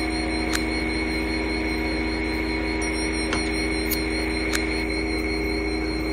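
Synthesized electronic drone: a steady low hum with several held tones and a hiss, broken by four sharp clicks, one about half a second in and three more between about three and four and a half seconds in.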